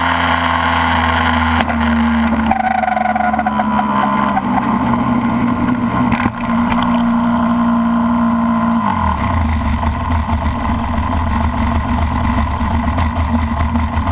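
ASP 61 two-stroke glow engine of an RC model plane, heard up close, running steadily. About nine seconds in it drops to a lower, slower idle.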